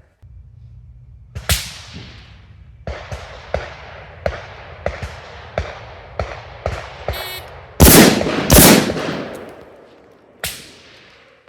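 Gunshots: a single sharp shot about a second and a half in, then a string of quieter shots about every two-thirds of a second. A shot timer beeps about seven seconds in, followed by the two loudest shots, a double fired about 0.7 s apart, and one more shot near the end.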